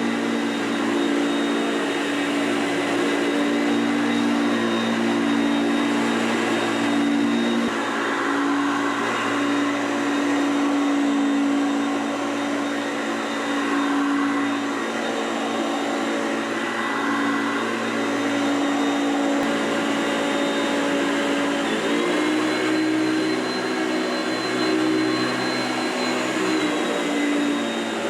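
Hoover Concept One U4219 upright vacuum cleaner running steadily, with its motor and belt-driven brush roll turning on freshly replaced bearings: the smooth running sound of the machine as it was when new. The pitch steps up slightly about three-quarters of the way through and eases back down near the end.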